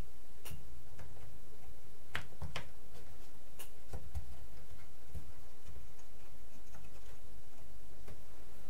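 Light clicks and taps at irregular intervals, about a dozen in all, over a steady low hum.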